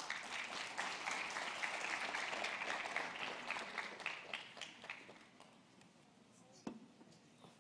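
Audience applauding, fading out after about five seconds, followed by a single knock near the end.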